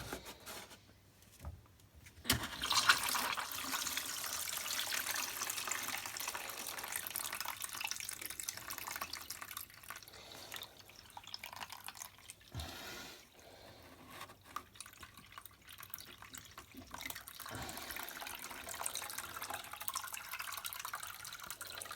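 Water pouring from a Miele washing machine's drain filter opening into a container, starting about two seconds in as a steady splashing stream that weakens in the middle and picks up again near the end. This is the standing water left in the drum being drained by hand.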